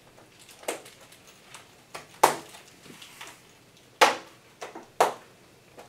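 Snap fasteners on a fabric aircraft window sunshade clicking onto their suction-cup mounts as the panel is pressed into place: four sharp snaps, the loudest about two and four seconds in, with faint handling in between.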